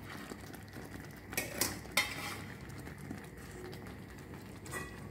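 A metal utensil clinking against a stainless steel pan a few times, about a second and a half to two seconds in and again near the end, over the low bubbling of chicken simmering in thickening barbecue sauce.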